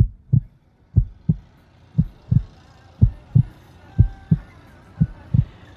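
Heartbeat sound effect: a deep lub-dub double thump repeating about once a second, with faint sustained tones coming in from about three seconds in.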